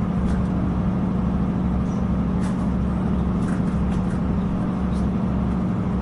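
Passenger train running: a steady low drone with rumble underneath, and a few faint clicks or rattles about halfway through.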